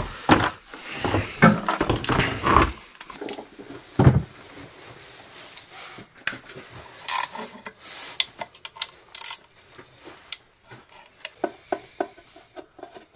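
Hand tools and metal parts being handled in a car's engine bay: irregular knocks, clinks and rubbing, with a quick run of short clicks near the end.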